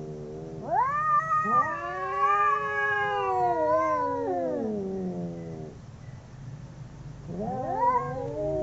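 Two cats caterwauling in a fight standoff. A long drawn-out yowl rises about a second in, holds, then sinks slowly over several seconds, and another rising howl starts near the end.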